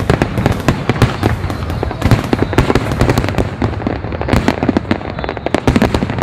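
Aerial fireworks going off in a rapid, dense string of bangs and crackles, many a second without a break.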